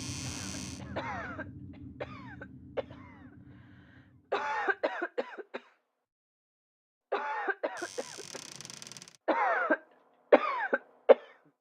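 Clusters of short, voiced coughs and throat-clearing sounds, the first group about four seconds in and more following at short gaps. A hissing burst comes at the start and another about eight seconds in, and a low drone fades away over the first four seconds.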